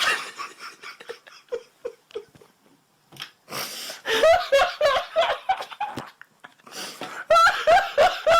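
Hearty laughter in rapid repeated 'ha-ha' bursts. It starts faint, grows loud about four seconds in, dips briefly, and rises again near the end.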